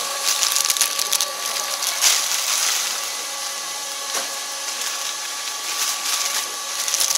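EarthPack FR-102-V3 horizontal flow-wrap packaging machine running: a steady motor whine with film rustling and crackling. Two sharp clacks about two seconds apart come from the seal-and-cut jaws closing on the film.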